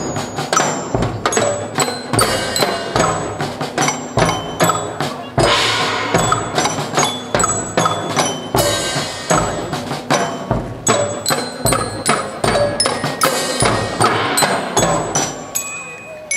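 March-like Nagasaki Kunchi festival hayashi from the Dutch-ship float: drum beats about twice a second with ringing metal percussion over them.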